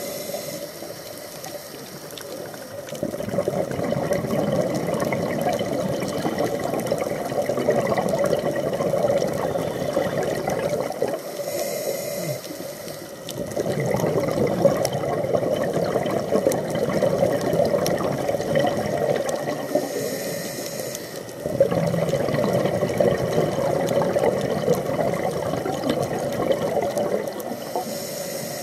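Scuba diver breathing through a regulator: long bubbling exhalations of about seven seconds each, separated by short hissing inhalations, about three breaths in all.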